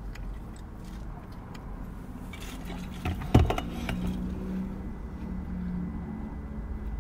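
Quiet eating and food-handling noises, with a single sharp knock a little over three seconds in, over a steady low rumble.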